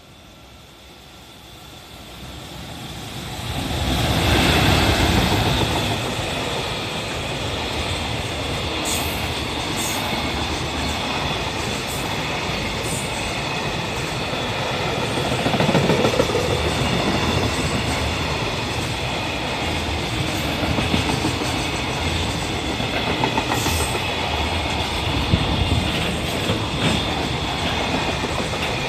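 A JR Freight EF210 electric locomotive hauling a container freight train through a station without stopping. The sound swells as the locomotive draws near and passes about four seconds in, then becomes a long, steady rumble of container wagons rolling by, with clacks of wheels over rail joints.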